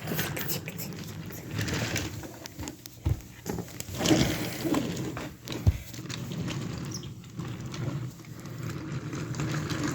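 Wooden toy train clattering along wooden track, with irregular clicks and a few sharper knocks of wooden pieces being handled.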